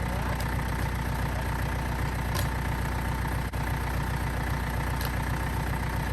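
An engine idling steadily with an even low pulse.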